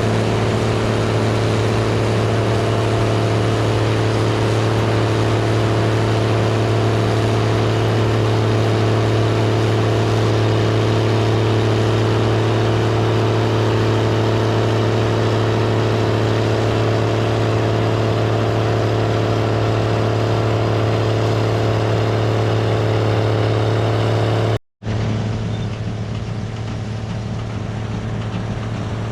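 Gleaner R72 combine running steadily while harvesting rye: a constant drone of engine and machinery with a strong low hum. It drops out for an instant near the end, then carries on slightly quieter.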